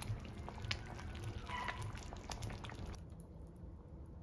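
Soup bubbling in a clay pot, with light clicks of chopsticks against the pot. The sound thins out about three seconds in.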